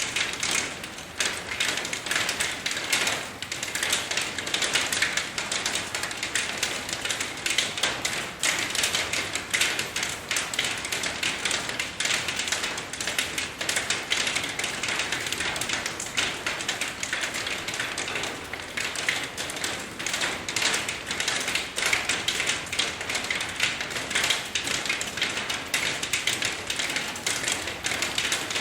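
Steady rain, a dense, even patter of many individual drops ticking.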